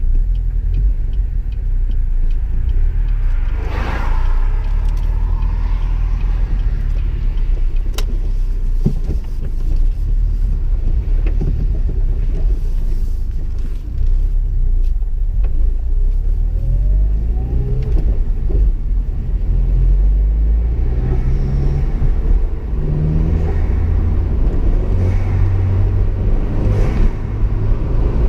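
Car with a 2.0-litre turbocharged LNF four-cylinder engine running under load with steady low rumble, rising in pitch as it revs in the second half, with bursts of turbo flutter when the throttle is lifted.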